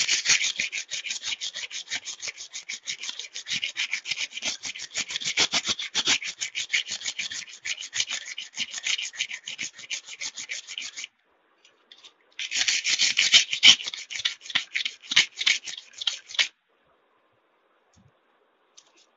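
Wet abrasive paper wrapped on a ruler, rubbed in quick back-and-forth strokes along a steel scissor blade to sharpen it: a dense, steady scraping. It breaks off for about a second just past halfway, runs again for about four seconds, and stops a few seconds before the end.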